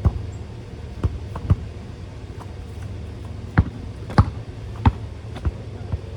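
A basketball bouncing on a hard court: about eight sharp bounces at uneven spacing, several of them about two-thirds of a second apart, over a steady low rumble.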